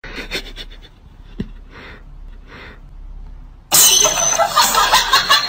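A cat sniffing at a socked foot, soft breathy puffs less than a second apart. Near the end a sudden, loud, harsh noise bursts in and keeps going as the cat recoils with its mouth open.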